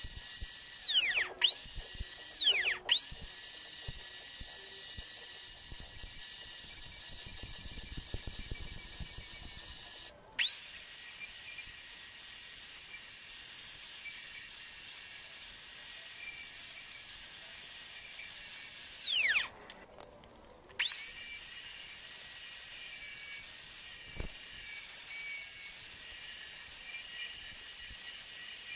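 Table-mounted wood router running with a steady high-pitched whine. Several times the motor winds down, its pitch falling as it slows, then starts up again and comes back to full speed.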